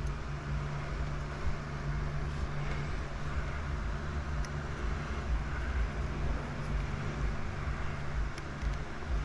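Steady low background hum over a shifting low rumble.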